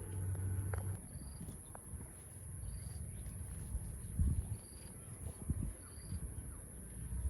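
Insects drone steadily at a high pitch, with short high chirps repeating about every second and a half. A low hum dies away about a second in, and a few low thumps follow near the middle.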